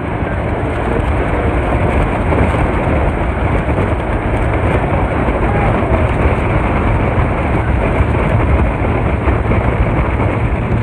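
Speedboat running fast on a river: a steady rush of water and wind over a low engine rumble.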